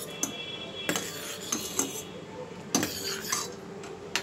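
Steel spoon stirring boiling milk in a stainless steel saucepan, clinking against the pan several times over a steady low hiss.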